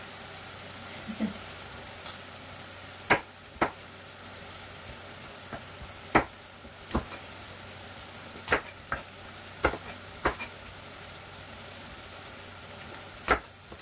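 Food sizzling steadily in a pan while a utensil stirs it, with about nine sharp knocks of the spoon against the pot at irregular intervals.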